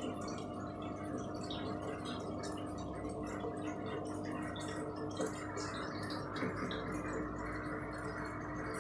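Aquarium filter running, with a steady hum and water trickling and dripping into the tank. There are a couple of brief, slightly louder splashes a little past the middle.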